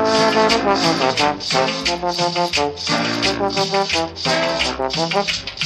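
Dance music: a brass section plays a melody in short notes over a steady shaker rhythm.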